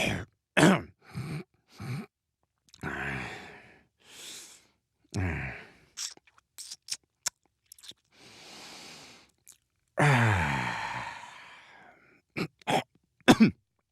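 A man making a string of wordless "dad noises": short grunts, breathy sighs and mouth sounds, a few sharp clicks, and a long falling groan-sigh about ten seconds in.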